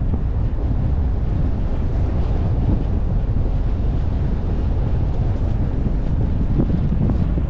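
Wind buffeting the microphone over the steady low rumble of a vehicle driving along a dirt road.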